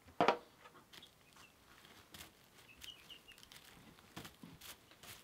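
A young chicken pecking the head of a small toy drum: one sharp drum tap about a quarter second in, then lighter pecking taps, with a few faint high cheeps around the middle.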